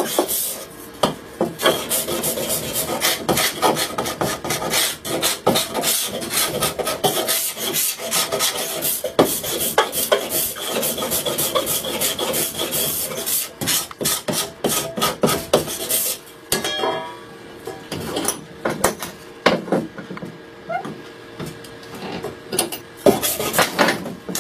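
Steel hand file rasping a wooden frame-saw part held in a vise, in quick back-and-forth strokes that dress and smooth its face. The strokes come thick and fast at first and turn slower and more spaced in the last third.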